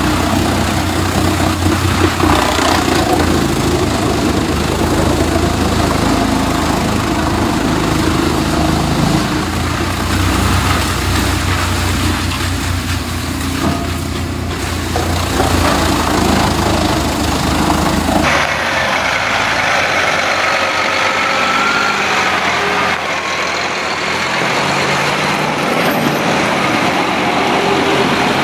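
A heavy machine's engine running steadily, then, about two-thirds of the way through, an abrupt change to a different machine with a wavering high squeal over lighter mechanical noise.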